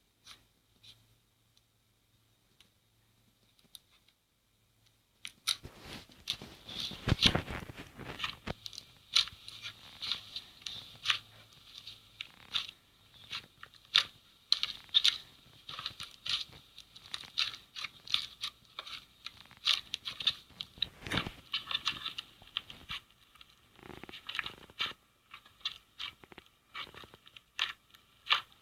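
Crunchy slime being squeezed and poked, giving many sharp crackling crunches in quick, irregular succession. They start about five seconds in, after near silence.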